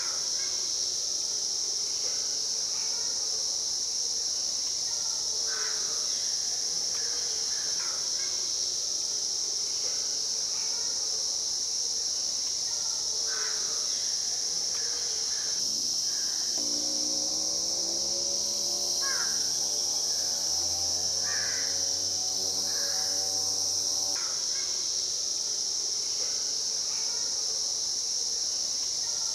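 Steady high-pitched drone of an insect chorus, with short bird calls scattered through it. About halfway through, a low hum with several overtones joins in for roughly eight seconds, slowly rising in pitch, and then stops.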